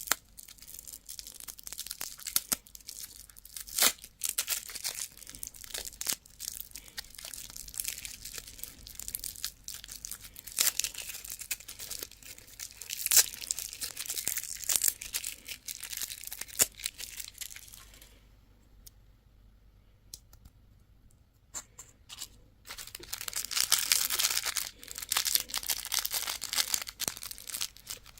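Wrappers from candy and surprise toys being torn open and crinkled by hand, in a close run of crackles and rips. It stops for a few seconds about two-thirds of the way through, then resumes as denser crinkling.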